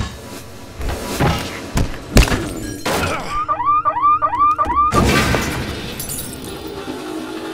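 Fight sound effects: several heavy blows and thuds in the first three seconds. Then, from about three seconds in, a rapid chirping call repeats about four times a second, and a crashing impact lands at about five seconds.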